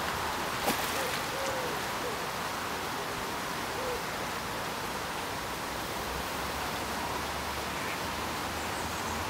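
Steady outdoor hiss by a lake, with one sharp click about a second in and a few short, faint calls from a bird between about one and four seconds in.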